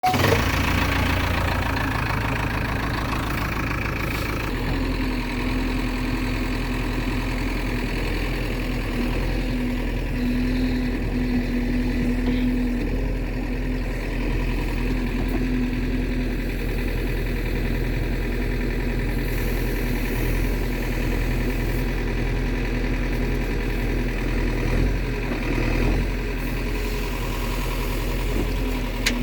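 Diesel engines of a backhoe loader and farm tractors running steadily at low revs, with a shift in the engine note about four and a half seconds in.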